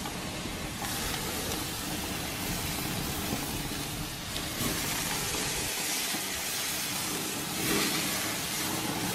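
Tomato halves sizzling face down on hot grill grates, a steady hiss that swells briefly near the end.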